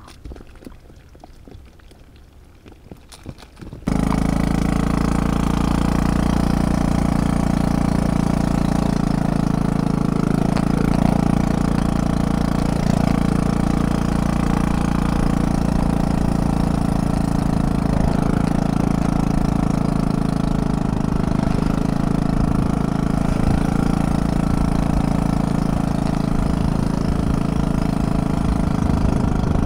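Quiet for the first few seconds. Then, about four seconds in, a small vehicle engine comes in suddenly and runs loud and steady, with an even low drone, while riding along a muddy dirt track.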